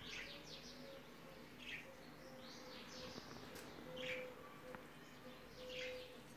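Faint chirping of a small bird, about five short calls falling in pitch, spread a second or so apart.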